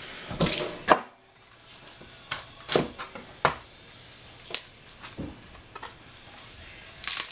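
Crisp snaps and light knocks, irregularly spaced, as hands break the leaves off a head of Belgian endive and drop them into a glass salad bowl.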